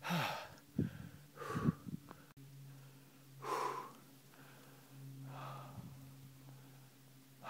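A person breathing hard from the effort of hiking uphill in deep snow: several heavy, gasping breaths a second or two apart, the first ones partly voiced. A faint steady low hum begins about two seconds in.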